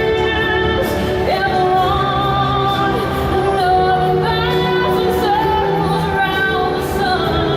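Fireworks show soundtrack played over the park speakers: a woman sings long held notes over orchestral music.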